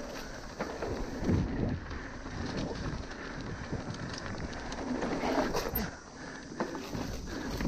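Mountain bike riding a rough dirt trail: tyres rolling over the ground with irregular clatter and knocks from the bike, and wind buffeting the microphone.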